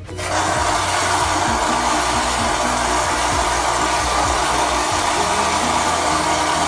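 Bathroom sink tap turned on at the start and running steadily into the basin, a loud even rush of water, as the facial scrub brush is rinsed out.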